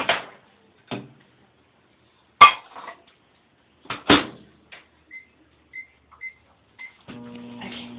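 Clunks and knocks from the microwave and dish being handled, the loudest a bang about two and a half seconds in. Then come four short keypad beeps. Near the end the microwave oven starts up and runs with a steady hum, beginning to heat the Ivory soap.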